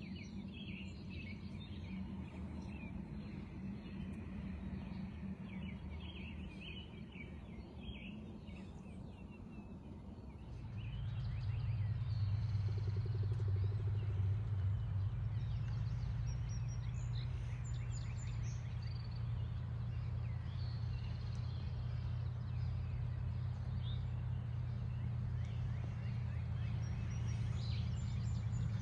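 1968 Chevrolet K20 pickup's engine running steadily. About ten seconds in it gets abruptly louder and lower in pitch, and stays that way. Birds chirp over it during the first ten seconds.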